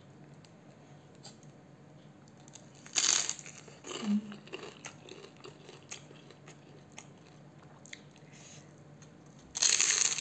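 A crisp kerupuk cracker being bitten with a loud crunch about three seconds in and again near the end, with quieter crunching and chewing between the bites.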